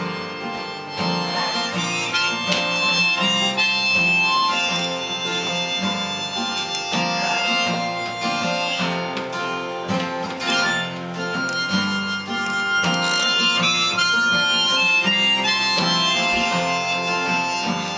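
Harmonica playing held melody notes over strummed acoustic guitar, played live.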